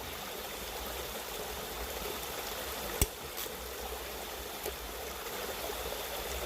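River water running steadily, with a single sharp click about three seconds in.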